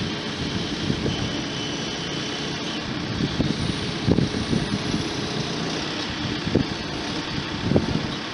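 Case 580 Super N backhoe loader's diesel engine running steadily, with irregular low pulses in the sound.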